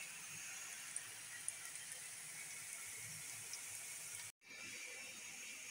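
Water at a rolling boil in a large aluminium pot on a gas stove, and sliced onions frying in oil: a faint, steady hiss of bubbling and sizzling with a few tiny pops.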